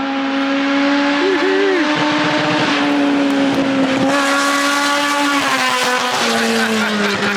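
Honda race engine running hard and very loud with its exhaust snapped off, a steady high engine note that drops a little in pitch about two-thirds of the way through, over a haze of road noise.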